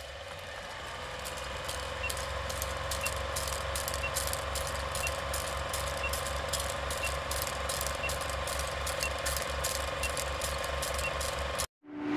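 Old film-projector countdown sound effect: a rapid, even mechanical clicking over a steady hum, with a short high beep once a second. It cuts off suddenly near the end.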